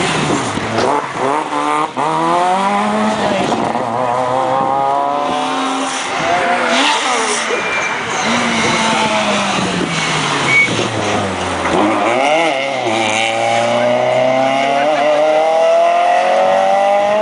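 Citroën C2 rally car's engine revving hard under acceleration, its pitch climbing and dropping back again and again as it shifts up through the gears. About two-thirds of the way through the revs fall away, then climb steadily again to the end.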